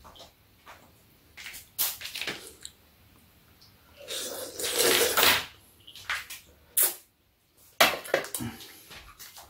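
Udon noodles being slurped: one long slurp about four seconds in and a shorter one near the end, with a few short clicks of chopsticks and dishes between.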